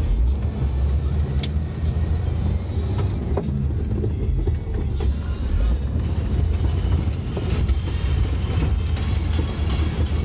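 Heavy diesel truck engine running with a steady low rumble, with a few light knocks.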